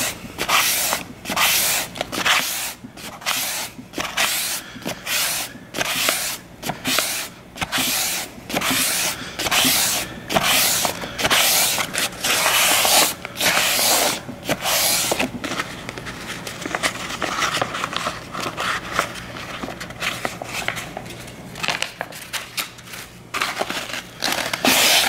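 Sandpaper rubbed by hand back and forth along the flat of a steel kitchen knife blade, about two even strokes a second, polishing out the scratches left by hand sharpening. After about fifteen seconds the strokes turn fainter and irregular.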